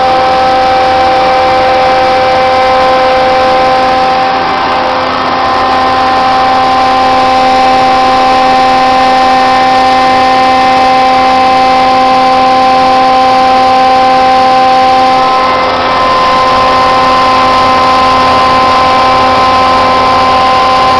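Rockwell Invicta 13-inch single-phase planer running: a loud, steady machine whine made of several steady tones over a hum, easing briefly twice.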